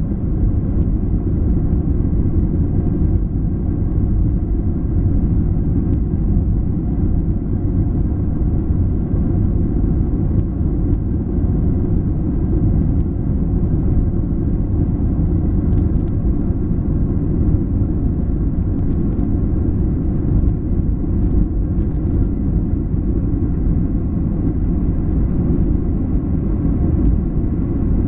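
Boeing 737-800's CFM56-7B jet engines running at steady takeoff power: a loud, even low rumble with a drone of steady tones above it, holding level throughout.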